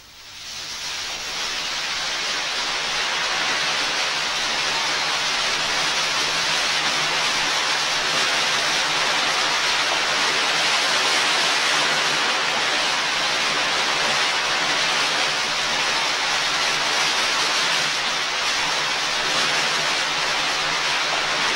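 A waterfall's steady rushing noise of falling water, fading in over the first couple of seconds.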